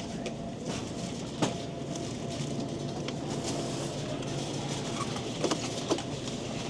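Busy grocery store background: a steady hum and rumble with scattered sharp clicks and knocks, the loudest about a second and a half in and twice near the end.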